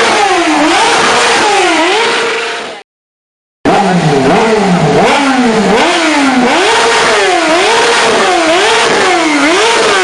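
Kawasaki ZX-6R 636 inline-four sportbike engine revved up and down over and over, about once a second. The sound fades and breaks off briefly about three seconds in, then the revving picks up again.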